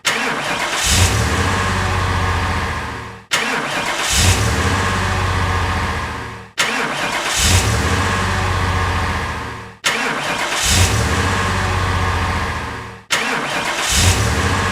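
Car engine starting: each time a brief surge as it catches, then steady running that fades away. The same clip repeats about every three seconds, five times over.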